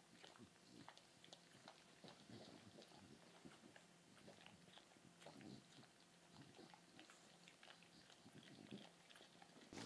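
Faint wet smacking and clicking from newborn puppies nursing at their mother, with small, brief squeaks scattered throughout.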